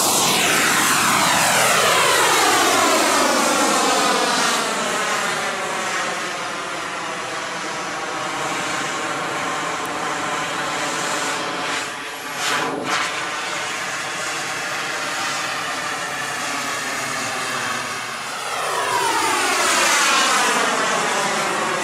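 ENJET E160 model jet turbine of a 2.2 m radio-controlled J-10B running at high power as the jet takes off and climbs away, with a sweeping, phasing whoosh as its distance changes. It is loudest at first, fades as the jet climbs out, and swells again near the end as it comes back past.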